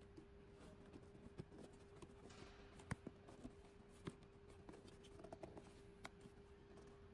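Corrugated cardboard box being folded and handled by hand: faint rustling and scraping with a few light taps, the sharpest about three seconds in, over a faint steady hum.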